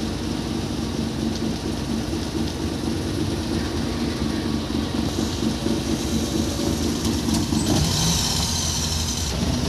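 Car engine idling and traffic noise heard from inside a taxi waiting at a red light, a steady low rumble. A brighter hiss swells about eight seconds in.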